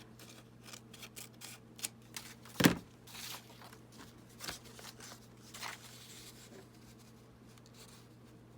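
Paper being handled for a craft: scattered short rustles and light clicks, with one sharp click a little under three seconds in, settling into quiet near the end.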